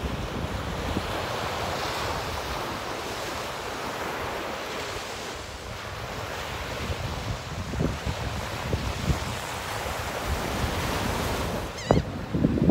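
Small surf breaking and washing up a sandy beach, with wind buffeting the microphone in uneven gusts.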